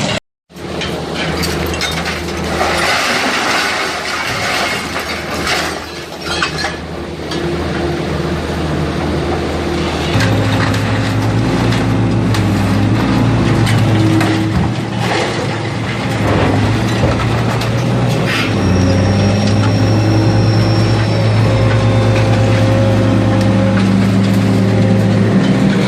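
Roter RR-550/6 scrap shear baler at work: scrap metal crunching and creaking as it is pressed, then the machine's hydraulic drive hums steadily and grows louder about ten seconds in.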